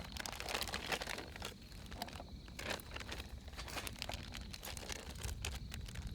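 Plastic packaging crinkling and rustling as it is handled, with many small crackles and light taps throughout.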